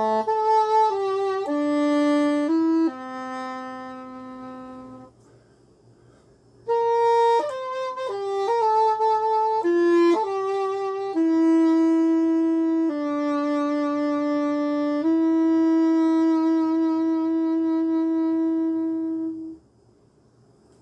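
Solo English horn playing a slow melody: a phrase of held notes, a pause of about a second and a half, then a quicker run of notes settling into long low held notes that stop shortly before the end.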